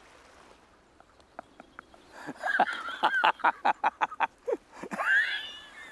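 A man laughing hard: a fast run of short "ha" bursts, about five a second, starting about two seconds in, then a high-pitched wheezing breath near the end.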